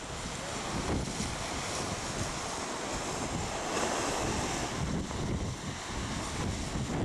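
Wind buffeting the microphone in irregular gusts over the steady wash of waves breaking on a shore.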